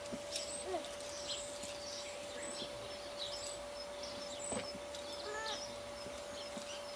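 Small birds chirping, many short high chirps scattered throughout, over a steady faint tone.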